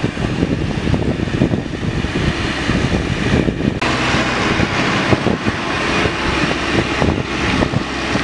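Massey Ferguson 385 tractor's four-cylinder diesel engine running under load while dragging a land leveller through loose soil. The sound turns harsher and brighter about four seconds in.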